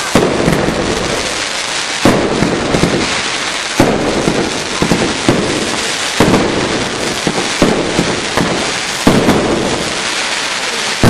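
Aerial fireworks display: shells bursting with a sharp bang every one to two seconds, over a continuous dense crackle and hiss from the bursting stars.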